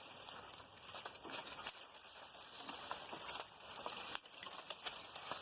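Faint rustling and crackling with a few light clicks, the chainsaw's motor not running.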